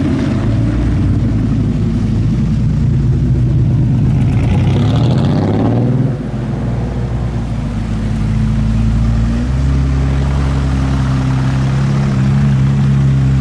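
Porsche 964's air-cooled flat-six engine running, its pitch sweeping up and down about halfway through, then settling into a steady low idle.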